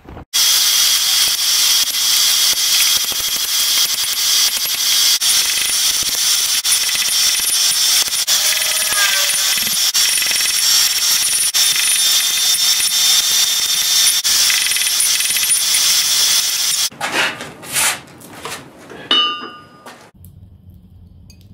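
Hand hammer striking a glowing-hot steel bar on an anvil: a long continuous run of blows with metallic ringing, which stops about three-quarters of the way in. A few separate ringing metal clinks follow.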